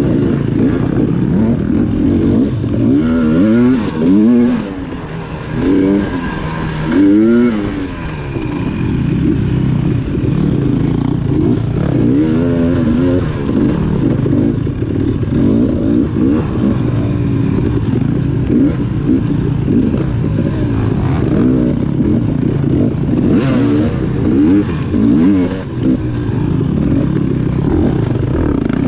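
Dirt bike engine revving up and falling back again and again as it is ridden hard over rough ground, with occasional rattles and knocks.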